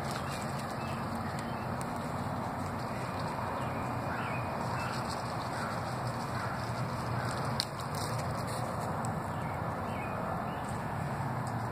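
Faint short bird calls from up in the trees, scattered between about four and eleven seconds in, over a steady outdoor background hum. A single light click about seven and a half seconds in.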